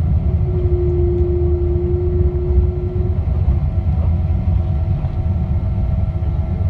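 Boeing 777-200 after touchdown, heard inside the cabin over the wing as the jet slows on the runway with spoilers up: a loud, steady low rumble of engines and wheels. A steady whine sounds over it for about two and a half seconds near the start.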